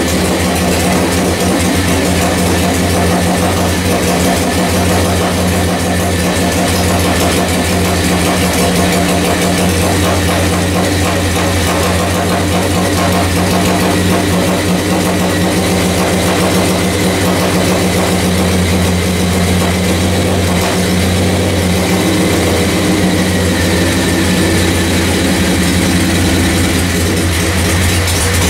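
Harley-Davidson 45 cubic-inch flathead V-twin motorcycle engine running steadily at idle on a newly built custom bike's first fire.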